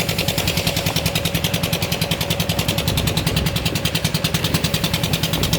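Concrete mixer machine's engine running steadily with a fast, even chugging beat of about nine pulses a second, with some mechanical clatter.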